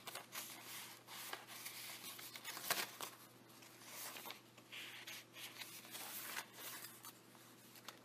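Pages of a handmade paper junk journal being turned and handled: faint, intermittent paper rustling with a few soft ticks.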